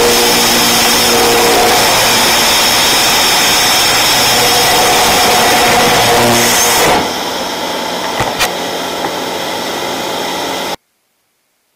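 Kitfox light aircraft's engine and propeller running steadily in flight, heard from inside the cabin over a loud rushing noise. About seven seconds in the sound steps down quieter with a couple of clicks, then it cuts off suddenly about a second before the end.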